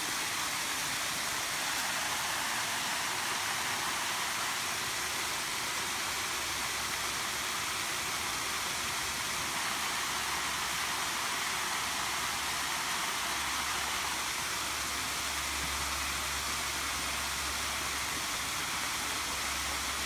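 Steady rush of water from a nearby waterfall, with a faint low rumble coming in now and then in the second half.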